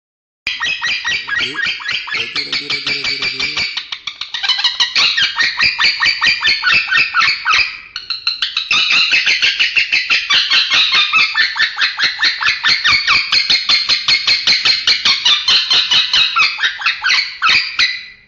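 Male lovebird chattering in a long, unbroken run of rapid shrill notes, about five a second. The run dips briefly about halfway through and then carries on.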